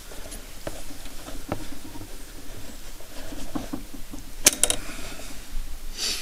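Hands working at a Singer 413 sewing machine, setting the thread tension and moving folded fabric under the presser foot: scattered light clicks and rustling, with one sharp click about four and a half seconds in and another near the end. The machine itself is not running.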